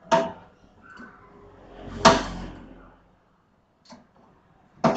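Sharp knocks and a scrape of metal parts as an old welding machine's sheet-metal housing and internals are handled: one knock at the start, a louder one about two seconds in with scraping around it, and another near the end.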